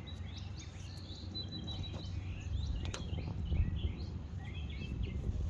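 Small birds chirping repeatedly in the background over a low rumble, with a few faint clicks.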